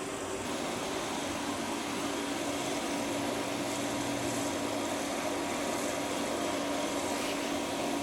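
Steady whir and rush of air from a motor-driven forge blower, with a constant hum and no hammer blows.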